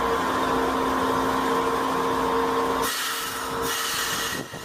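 São Paulo Metro Fleet L electric train standing at the platform, its equipment giving a steady hum with several steady tones. The highest tone stops about three seconds in, and two short bursts of hiss follow.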